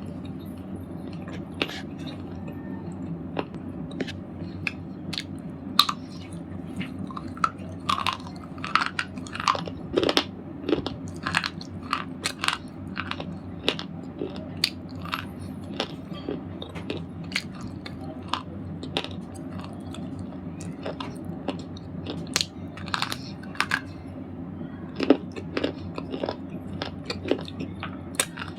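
Red slate balls being crunched: a continuous run of sharp, irregular cracks and crumbles, coming thickest in clusters through the middle and near the end.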